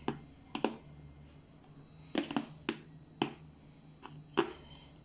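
A spoon knocking and scraping against a plastic food box while stirring thick whipped cream: about seven short, sharp clicks at uneven intervals.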